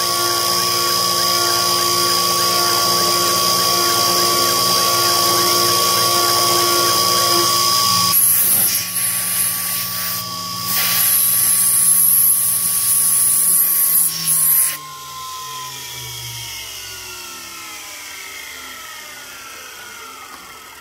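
Sherline CNC mill spindle running at about 10,000 rpm with a steady high whine while its carbide tool cuts in a 7075 aluminium block. About eight seconds in, a loud hiss joins it for several seconds. Then the spindle is switched off and its whine falls away as it spins down.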